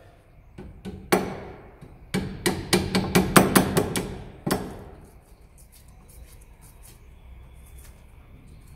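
Hammer striking steel on a car's front suspension knuckle: one blow, then a fast run of about a dozen ringing strikes, knocking the lower ball joint pinch bolt out of the knuckle.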